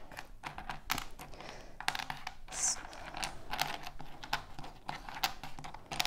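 Small wooden jigsaw puzzle pieces clicking on a wooden tabletop as they are turned over and pushed around by hand, in quick, irregular light clicks.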